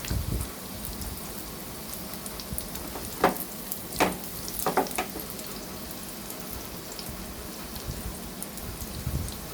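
Battered banana-flower florets deep-frying in hot oil, a steady crackling sizzle. A few sharp knocks come about three to five seconds in, two of them louder than the sizzle.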